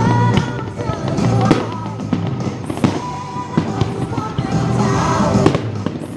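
Aerial fireworks going off in quick, irregular succession, sharp bangs and crackling bursts, over music playing at the same time.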